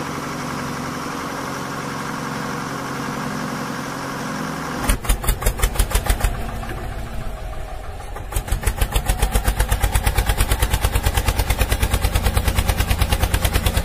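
An engine hums steadily. About five seconds in it changes abruptly to a low, even thudding at about five to six beats a second, which dips briefly and then runs on regularly.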